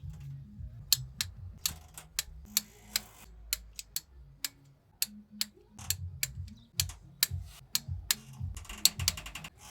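A run of sharp, irregular clicks and taps, with a quick rattling series of clicks near the end.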